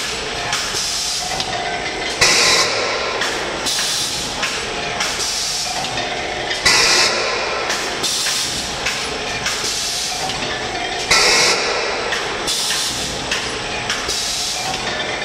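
Egg-tray production machine running through its automatic cycle: a steady mechanical clatter of the chain-driven conveyor and rollers. Over it comes a hiss of air every couple of seconds, with the loudest hiss starting suddenly about every four and a half seconds.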